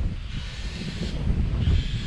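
Wind buffeting the microphone: a loud, uneven low rumble, with a fainter high hiss that swells and fades.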